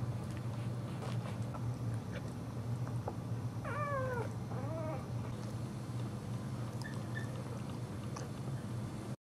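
Sleeping boxer dog whimpering in her sleep: two short, high whines falling slightly in pitch about four seconds in, over a steady low hum. The sound cuts off just before the end.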